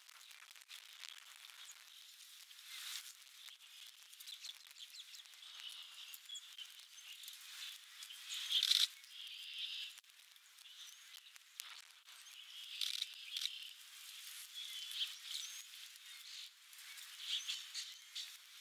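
Small birds chirping and calling on and off, faint, with the loudest call about nine seconds in.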